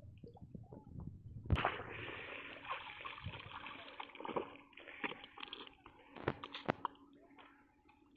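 Water splashing and sloshing as a cast net is rinsed and hauled dripping out of shallow creek water. It starts with a sudden splash about a second and a half in and runs for a few seconds, followed by several short wet smacks.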